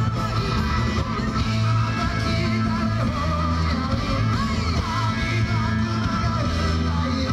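A live rock band playing, with electric guitar and a voice singing over it.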